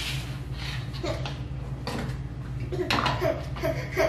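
A spoon stirring and scraping thick cornstarch goop in a plastic bowl, with a few light clicks against the bowl. About three seconds in, a small child starts babbling.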